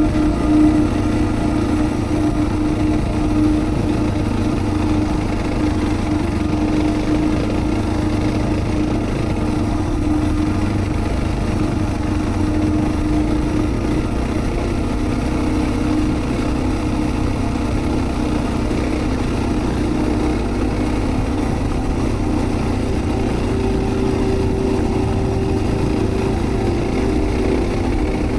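Suzuki DR650's single-cylinder engine running steadily under way, its note rising a little near the end.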